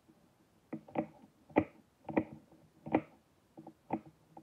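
Kitchen knife chopping through an apple and striking the cutting board: about eight sharp knocks at an uneven pace.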